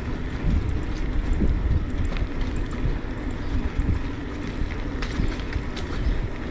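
Mountain bike tyres rolling along a road, with wind buffeting the microphone as a steady rumble.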